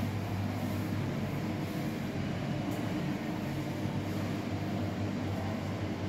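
A steady low mechanical hum with a light hiss behind it.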